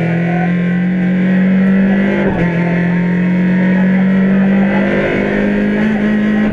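Rally car engine under hard acceleration, heard from inside the cabin, its pitch climbing steadily. About two seconds in the pitch drops briefly at a gear change, then climbs again.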